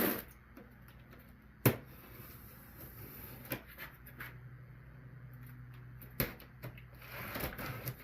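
Cardboard shipping box and its packaging being opened and handled: a few sharp knocks and taps, the loudest about two seconds in, with light rustling near the end, over a low steady hum.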